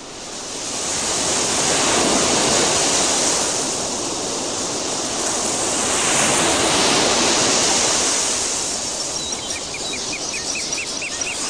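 Sea surf: a wash of waves that swells about two seconds in, eases, and swells again around six to seven seconds. A run of faint, quick high chirps comes near the end.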